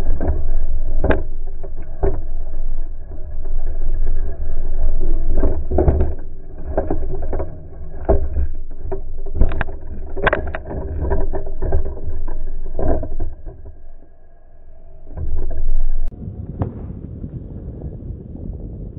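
Wind rumbling on the microphone of a camera on a moving bicycle, broken by many sharp, irregular rattling knocks, with a faint steady hum beneath. It eases briefly a little after the middle.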